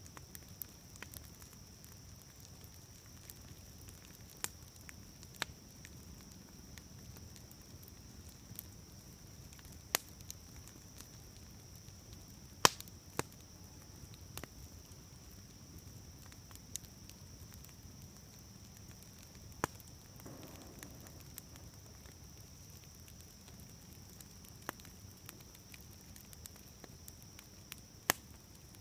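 Wood campfire crackling quietly, with scattered sharp pops; one pop a little before halfway is much louder than the rest.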